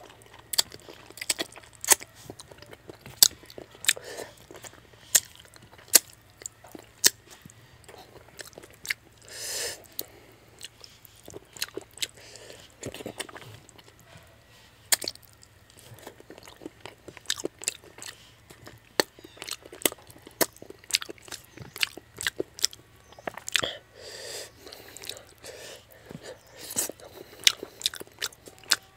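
Close-up mouth sounds of a person eating fish head curry with rice by hand: wet chewing and lip smacking, with many sharp clicks scattered throughout and a longer hiss-like sound about ten seconds in.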